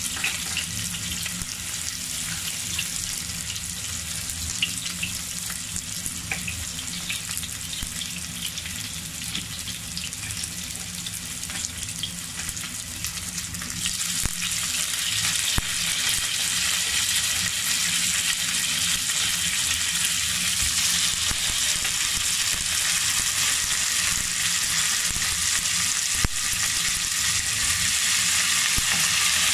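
Chopped onion, garlic and fenugreek seeds sizzling in hot oil in a pan, with scattered crackles. About fourteen seconds in, the sizzle grows louder and fuller as tomato pieces are added to the pan.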